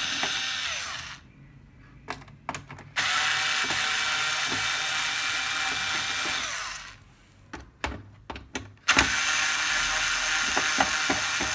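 Cordless electric screwdriver running in three spells of a few seconds each, backing out the back-panel screws of an LED TV. Short clicks and taps sound between the runs.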